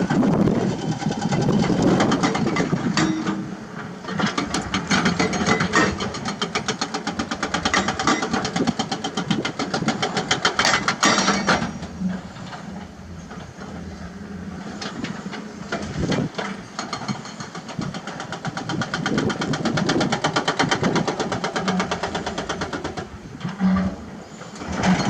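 Heavy diesel engines of excavators working on site, a fast steady engine beat that rises and falls with load, easing off about twelve seconds in and building up again near twenty seconds.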